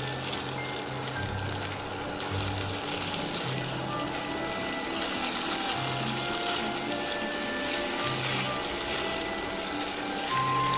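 Food sizzling as it fries in oil in a pan, under background music with held bass notes.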